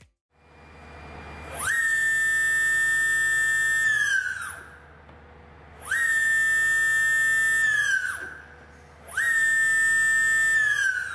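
Brushless electric motor driven by a Flipsky Mini FSESC 4.20 speed controller, spun up three times from a handheld remote. Each time a whine rises quickly to a steady high pitch, holds for about two seconds, then glides down as the motor slows.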